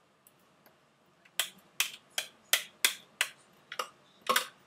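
A plastic food-chopper bowl knocked repeatedly to shake chopped herbs out into a glass bowl: about eight sharp knocks, two to three a second, starting a little over a second in.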